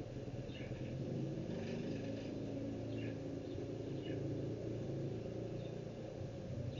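A steady low motor-like hum, with a few short high chirps that fall in pitch scattered through it.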